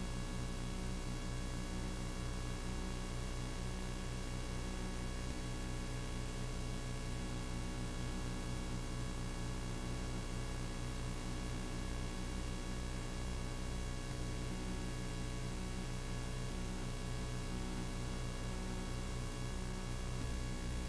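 Steady electrical hum with hiss and nothing else: the noise floor of a silent film transfer that has no sound of its own.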